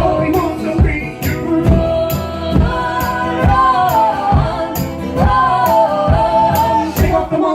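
Live band playing, with two voices singing held notes in harmony over a steady drum beat.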